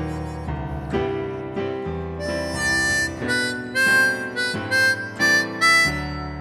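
Harmonica playing a melody line of held notes over keyboard accompaniment, an instrumental break in a slow ballad.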